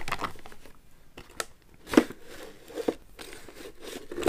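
Makeup items being handled in a perforated plastic organizer basket: light rustling with a few sharp clicks and taps, the loudest about two seconds in.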